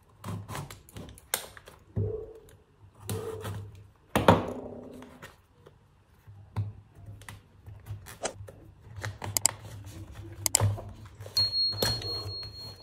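A utility knife slitting the plastic shrink-wrap on a small cardboard box, then the wrap being peeled off and the box handled and opened: an uneven run of clicks, crinkles, scrapes and knocks, loudest as a thud with rustle about four seconds in. A thin steady high tone comes in near the end.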